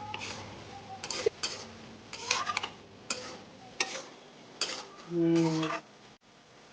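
A metal spoon or ladle stirring curry in a cooking pot, scraping and clinking against the pot in irregular strokes, with a longer, louder scrape near the end.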